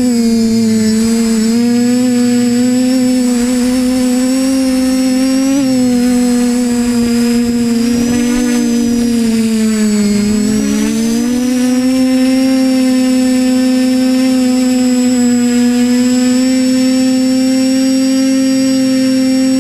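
TBS Discovery Pro quadcopter's electric motors and propellers humming steadily, heard from its onboard camera. The pitch sags around ten seconds in and then climbs back up.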